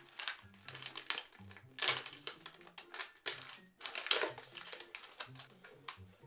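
Quick, irregular crinkling and clicking of wrappers and small toys being handled as a freshly opened giant surprise egg is emptied, with faint background music underneath.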